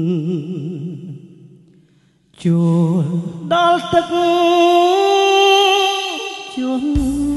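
A male singer's held, wavering note in a Khmer ballad fades out, and after a short pause a Yamaha PSR-S950 arranger keyboard comes in with a loud, sustained melody line that steps up in pitch.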